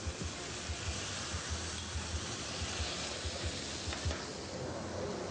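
Butter and chopped green onion frying hard in a pan as raisins go in, with the pan flaring up: a steady sizzling hiss.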